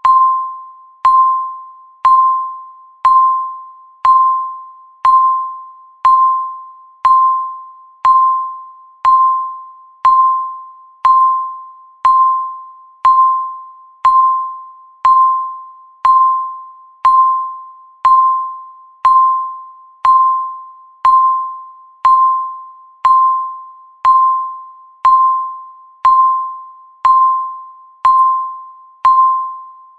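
Countdown timer tick: a short electronic beep near 1 kHz, struck sharply and fading away, once every second.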